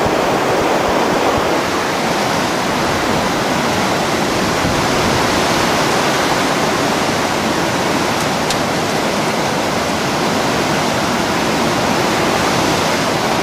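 Hailstorm: dense hail falling with wind, a loud, steady, unbroken noise.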